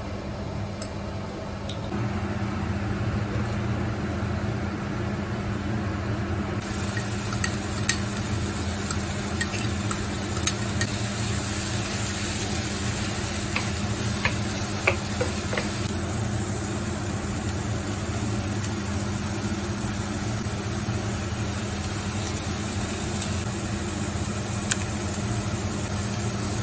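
Food sizzling in a frying pan and being stirred, with scattered clicks of a utensil against the pan, over a steady low hum. The sizzling hiss grows fuller about six seconds in.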